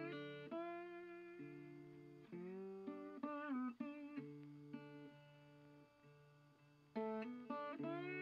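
Background music of plucked guitar: a gentle melody of decaying notes over a steady bass line, pausing briefly about six seconds in.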